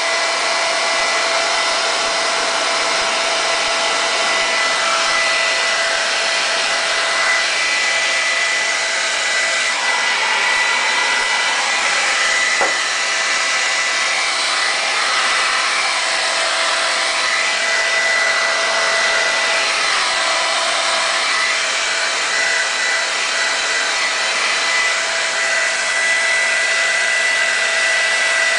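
Handheld hair dryer running steadily: an even rush of blown air with a thin, steady whine from its fan motor.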